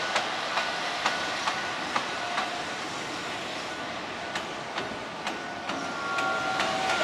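JR Freight Class EF210 electric locomotive running light, its wheels clicking over rail joints about twice a second over a steady running rumble. Steady high-pitched tones join about six seconds in.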